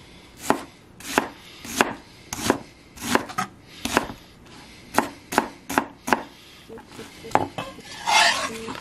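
Chef's knife chopping a red onion on a cutting board: about a dozen separate chops, roughly one every half second. Near the end, a longer scrape as the blade sweeps the diced onion across the board.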